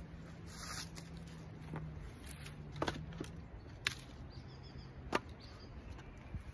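Split firewood being stacked by hand onto a woodpile: three sharp wooden knocks about a second apart as pieces are set down against the stack, over a faint steady low hum.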